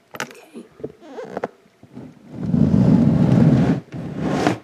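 A click, some rustling, then a long scraping rumble and a shorter one near the end: a plastic reptile tub being slid along its rack shelf.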